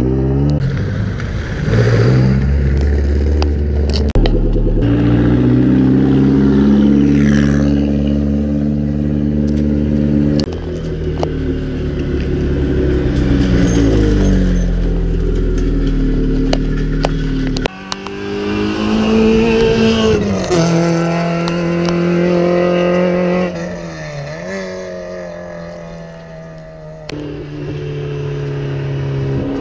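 Rally car engines accelerating hard, the pitch climbing and dropping through gear changes. About two-thirds of the way in the sound changes abruptly to another car. Near the end it falls quieter, then builds again as a car comes closer.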